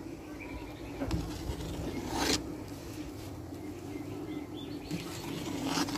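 Slotted steel skimmer knocking against a steel bowl about three times, loudest a little past two seconds in, as scum skimmed from boiling sugarcane juice is knocked off into the bowl, over a steady low hum.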